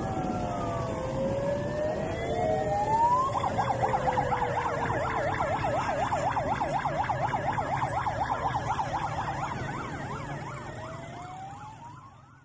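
Sirens on police and Rangers patrol vehicles, several wailing over one another. About three seconds in, one switches to a fast yelp for around six seconds, then goes back to a slow wail. The low rumble of traffic and engines runs underneath, and everything fades out at the very end.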